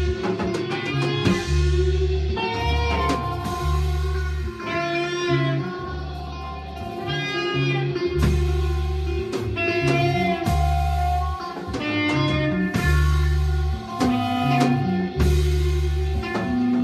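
A band playing live: electric guitar lines over deep held bass notes that change every second or so, with a drum kit keeping time.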